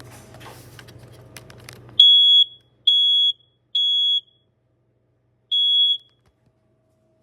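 A smoke alarm's piezo sounder beeping a loud, high, steady tone in the temporal-three evacuation pattern: three half-second beeps, a pause, then a fourth beep before it stops. Faint rustling and clicks come before the first beep.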